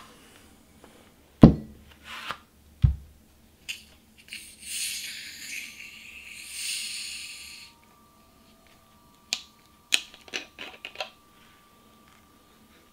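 A drinking glass set down on a table with two knocks, then the screw cap of a plastic bottle of Crystal Pepsi twisted open, the carbonated soda hissing for about three seconds as the gas escapes. A few light clicks of handling follow.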